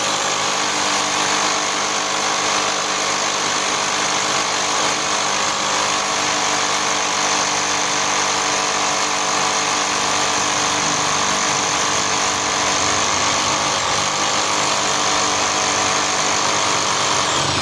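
National EZ6813 29.4 V cordless hammer drill in hammer mode, boring into cast concrete with a 10 mm bit at its low speed range. It runs steadily and loudly throughout.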